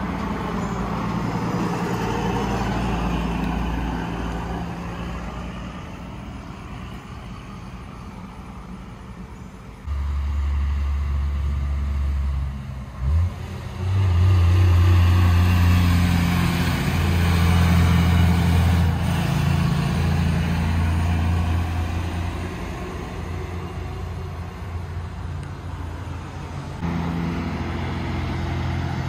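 Semi trucks passing on a highway one after another, their diesel engines droning low, with passing car traffic in between. The loudest truck goes by in the middle, about fourteen to nineteen seconds in.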